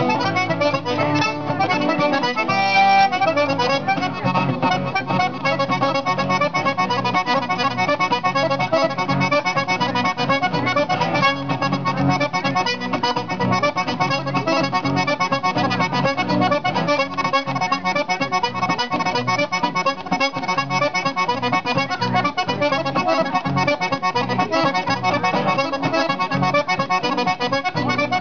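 Button accordion playing a traditional Québécois tune in a continuous stream of quick notes, with acoustic guitar accompaniment.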